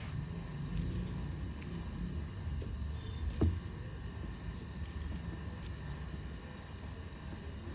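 Chain fidget spinner's metal links clinking now and then, a few short light clicks and one louder knock about three and a half seconds in, over a steady low rumble.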